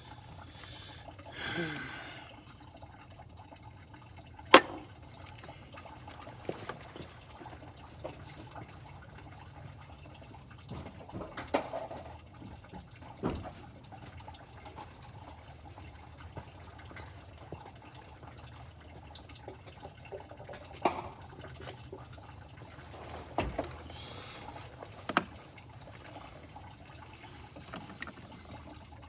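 Engine coolant faintly trickling and dripping from the opened cooling system. Scattered light clicks and knocks of metal parts and tools being handled come through, the sharpest one about four and a half seconds in.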